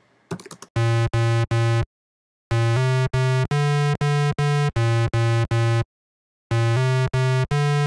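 A low retro-style software synthesizer part playing short, detached repeated notes, about three a second, in three phrases with two brief pauses between them.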